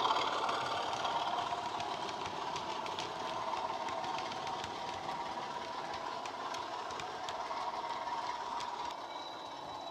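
Sound decoder in a Heljan Class 25 model diesel locomotive playing its recorded Sulzer diesel engine under way through the model's small speakers, fading as the train moves away. Occasional light clicks.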